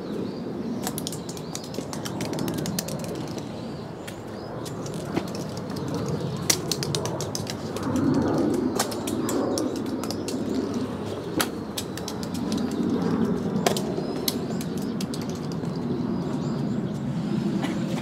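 Irregular sharp clicks and taps of small hard balls striking and rolling on stone paving tiles, over a steady low rushing background that swells about halfway through.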